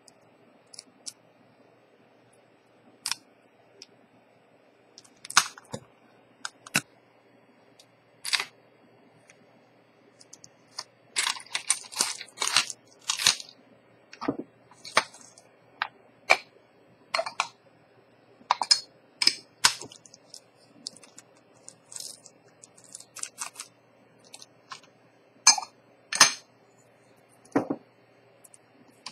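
Irregular sharp clicks and taps of small hard objects, single ones at first, then a quick run of them about eleven seconds in, with more scattered through the rest.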